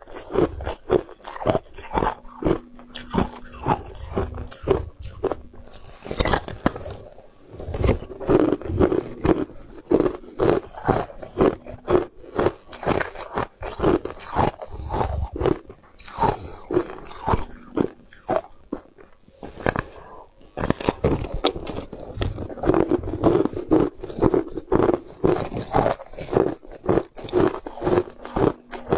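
A person biting and chewing a moulded block of ice close to the microphone: rapid sharp cracks and crunches, with a couple of short pauses about a quarter of the way in and about two-thirds through.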